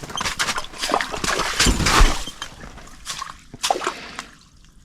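Water splashing and sloshing in an ice-fishing hole as a hooked crappie is pulled up through it, with irregular knocks and handling noise, loudest about two seconds in, then dying away.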